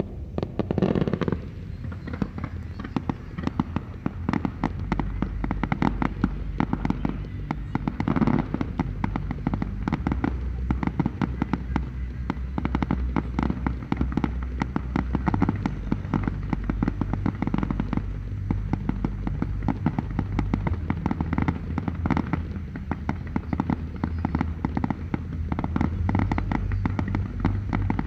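Fireworks display: a continuous, rapid crackling and popping of many shells and sparks bursting at once.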